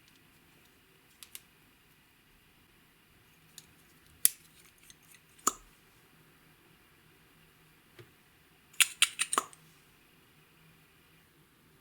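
Clear slime being mixed by hand, giving sharp clicks and pops: a pair about a second in, single ones around four and five and a half seconds, and a quick run of about five near the end.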